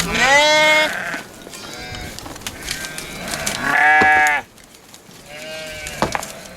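Sheep bleating: three drawn-out calls, two loud ones at the start and near the middle and a fainter one near the end, followed by a short sharp knock.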